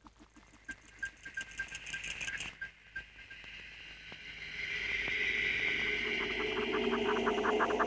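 Fast mechanical-sounding rattling and ticking: a run of quick, high pulses in the first few seconds, then a rising, denser rhythmic rattling chatter that builds toward the end.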